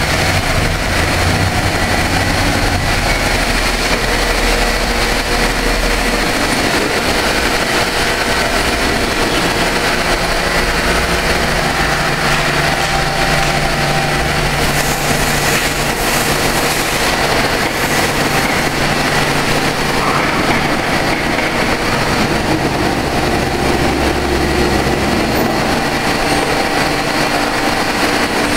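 Steady mechanical running noise of a vertical machining center with an automatic pallet changer, as a loaded pallet is drawn from the changer into the machine. Low motor hums come and go over a constant machine-shop din.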